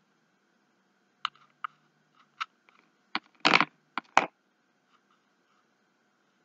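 A run of short clicks and taps from a hot glue gun being worked along the back of a card and the card being handled on a cutting mat, with one slightly longer scrape about three and a half seconds in.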